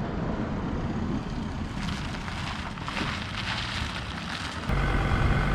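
Crackling, rustling noise, then about four and a half seconds in a 4WD's engine idling steadily comes in.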